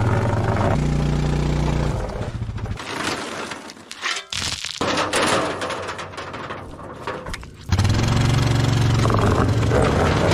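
A vehicle engine running steadily while a trailer moves on a bent axle arm, its bent wheel rubbing and scraping against the wheel beside it, with clicks and knocks in the middle stretch. The rubbing is the sign of the bent axle arm, which will destroy the wheel if driving goes on.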